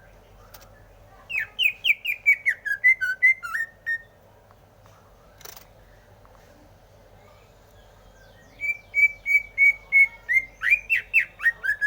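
Green leafbird (cucak hijau) singing: two phrases of rapid, clear whistled notes, the first starting about a second in and the second near the end, with a brief click between them over a faint steady hum.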